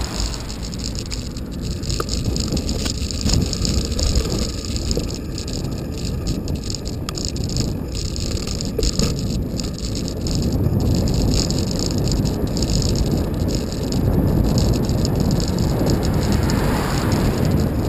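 Onboard sound of a bicycle being ridden along a road: a steady rumble of road and wind noise with light rattling clicks, getting louder in the second half.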